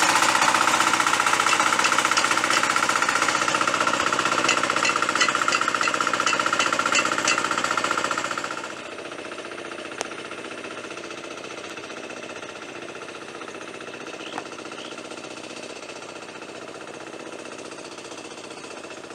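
Hand tractor's single-cylinder diesel engine running under load with a fast, rattling chatter while plowing. About eight seconds in it drops to a quieter, steady running, heard from farther off.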